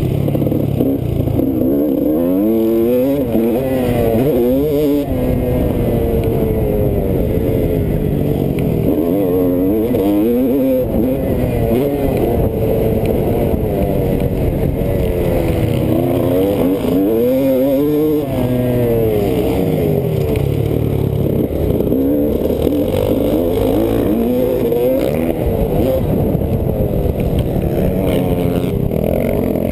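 Dirt bike engine heard from on board at racing speed, revving up and falling off again and again as the rider accelerates, shifts and brakes through the corners and straights.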